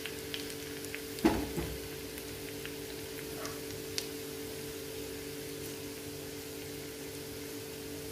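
Sliced shallots and chillies frying in hot coconut oil in a small pan: a steady sizzle with a few small pops, over a steady low hum. A single sharp knock about a second in is the loudest sound.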